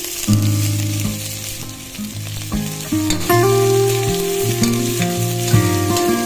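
Diced carrot, onion and beans sizzling as they fry in a stainless steel pressure cooker, stirred with a spoon. Guitar music plays underneath.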